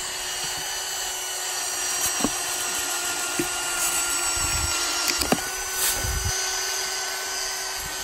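Cordless drill running steadily on high speed under load, turning the screw of a homemade log lift that raises a heavy log. Its pitch steps up slightly about five seconds in, and a few short knocks come from the lift and log.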